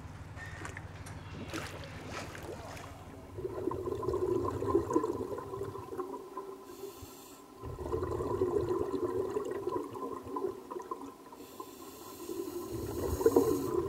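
Scuba diver breathing underwater through a regulator: three long exhalations of burbling bubbles, the first starting about three seconds in, with an inhalation hiss before each of the later two.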